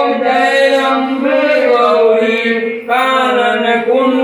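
A voice singing a Hindu devotional chant in long, held notes, as during an aarti, with a short break for breath about three seconds in.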